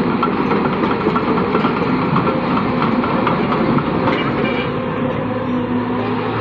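Cat 320 GX hydraulic excavator working: its diesel engine runs steadily under a dense, rapid metallic rattle and clatter.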